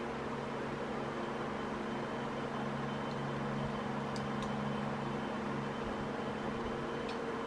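Steady machine hum from a running motor or fan in a workshop. A few faint light clicks, about four seconds in and near the end, come from small metal gun parts being handled and wiped with a rag.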